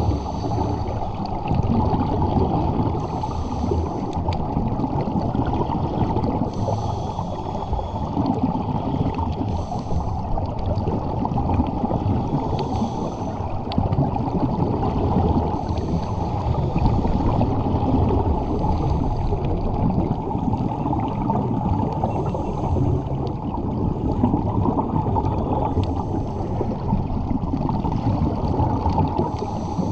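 Underwater sound during a scuba dive: a dense, steady rumble and gurgle of water and bubbles, with a faint short hiss about every three seconds from breathing through a scuba regulator.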